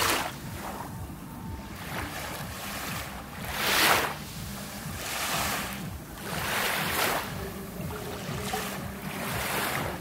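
Small Black Sea waves breaking and washing up a sandy, shelly shore, a new wash swelling and fading every one and a half to two seconds, the loudest about four seconds in. A low steady rumble runs underneath.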